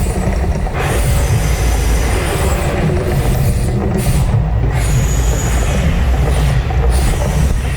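Mirage volcano eruption show, its sound system playing a loud, steady low rumble with a hiss over it that drops out briefly a few times.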